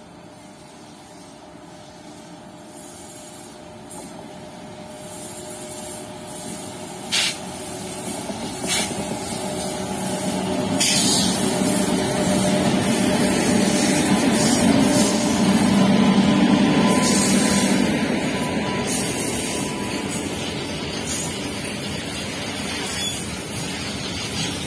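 Freight train hauled by two electric locomotives approaching and passing close by. It grows steadily louder, with two sharp clicks on the approach, and is loudest as the locomotives go past, with a faint steady tone over the noise. It eases a little as the box wagons roll by.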